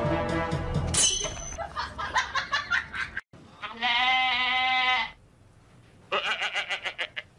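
Wavering, bleat-like animal calls: a stuttering run of short calls, then one long held call about halfway through, and another stuttering call near the end. A short falling whistle comes about a second in.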